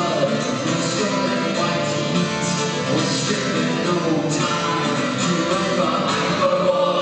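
Live rock band with orchestra playing, an acoustic guitar strumming under a singer's voice.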